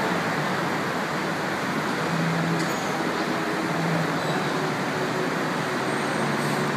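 Steady traffic noise: a continuous wash of road vehicles passing.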